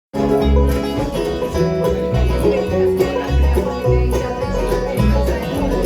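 A country band playing the instrumental opening of a song: plucked strings over a bass line that pulses about once a second, before any singing.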